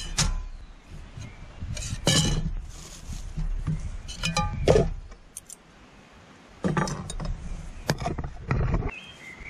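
A frying pan and a metal fork clinking and knocking against each other and a plate as food is served from the pan: a handful of separate clinks spread through.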